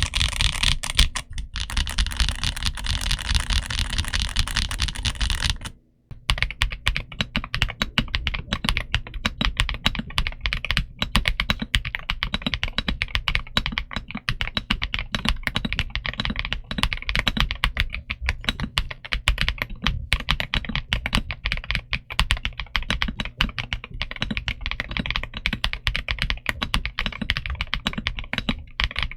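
Continuous fast typing on Redragon K709 65% mechanical keyboards: a dense stream of keystroke clacks. A brief break about six seconds in marks the switch from the wired K709 to the K709 Pro, whose typing sounds less bright.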